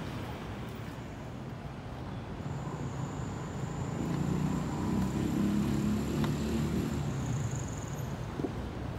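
Steady road traffic noise, with a vehicle going past and swelling in the middle, plus a thin high steady tone above it.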